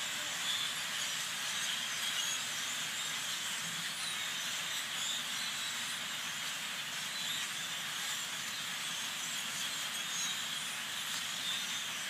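A huge flock of small dark birds, calling all at once in a steady, dense din of countless overlapping chirps, mixed with the rush of many wings.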